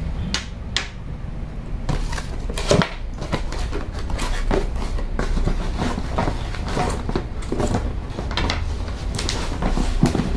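Scattered clicks, taps and knocks of an electric drill and metal drill-stand parts being handled and set down on a tabletop, over a steady low hum.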